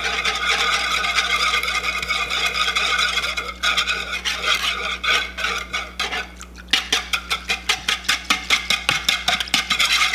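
Stainless steel wire whisk beating a liquid soup and broth mixture in a plastic mixing bowl. It starts as a fast, continuous swishing scrape, then turns into separate rhythmic strokes at about four a second in the second half.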